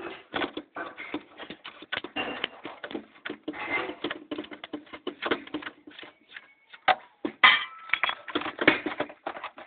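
Rapid, irregular clicking, rattling and scraping of hand tools against metal and plastic parts as the copper deflection yoke of a CRT television is worked loose from the picture tube's neck. The loudest clatter comes about seven and a half seconds in.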